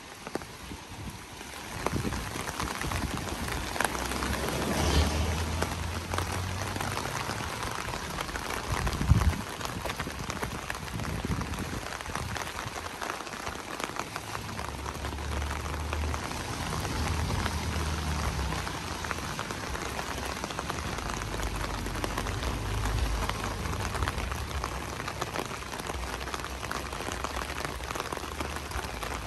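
Steady rain falling, with low rumbles that come and go and a sudden knock about nine seconds in.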